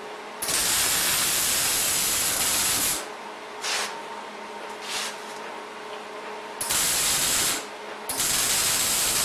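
Welding arc crackling in a series of tack welds on a steel mowing deck: one long weld of about two and a half seconds, two brief blips, then two welds of about a second each.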